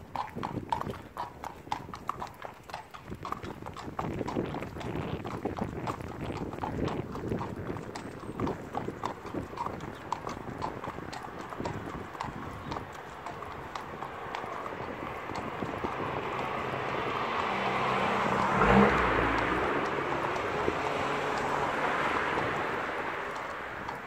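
Hooves of a Welsh cob gelding and a second horse clip-clopping on a tarmac road. A little past halfway a vehicle's engine and tyre noise swells, loudest about two-thirds of the way in, then fades as it passes and partly covers the hoofbeats.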